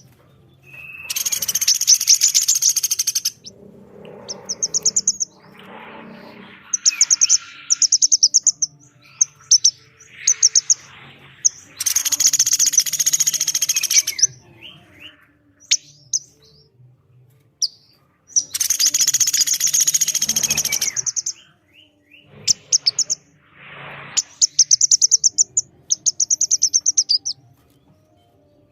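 Recorded calls of a pelatuk beras woodpecker and a female korlap, alternating. Three long dense bursts of high calls come about a second in, around twelve seconds and around nineteen seconds. Between them are runs of quick, repeated high trilled notes.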